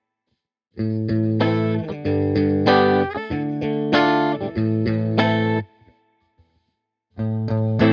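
Epiphone Les Paul Black Beauty three-humbucker electric guitar played on a clean tone: a phrase of chords with a few sliding notes starts about a second in and stops suddenly after about five and a half seconds, and a new phrase begins near the end.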